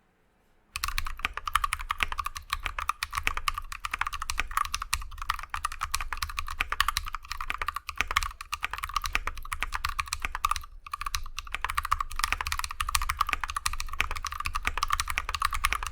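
Fast, continuous typing on a custom mechanical keyboard. It is an aluminum TOFU65 case with a hot-swap PCB resting on a DIY silicone dampener, fitted with T1 tactile switches, without the brass weight. The typing starts about a second in and breaks off briefly once around the middle.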